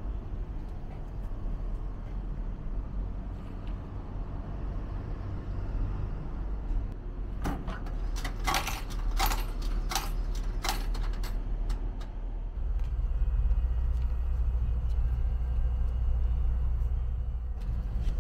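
A cluster of clicks and rattles about halfway through as a compartment of a locker-style vending machine is opened and a plastic Shinkansen-shaped candy box is pulled out. A steady low rumble underneath grows louder near the end.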